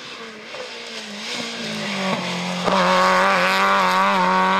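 Rally car engine running at high revs as the car approaches, growing louder and jumping sharply in level a little under three seconds in as it comes close, its pitch wavering with the throttle.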